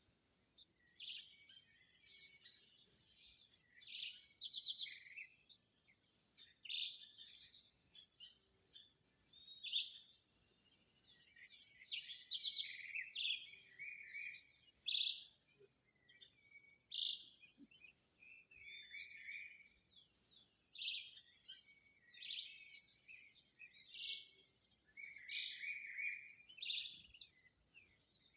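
Birds calling at dawn in a dry field: short separate calls and a few brief trills, a few seconds apart. Under them an insect chorus keeps up one steady, high-pitched drone.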